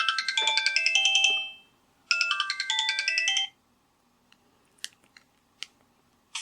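Sony Ericsson W302 mobile phone ringtone: a short, bright synthesized melody of quick notes, played twice with a brief pause between. A few faint clicks follow in the quiet after it.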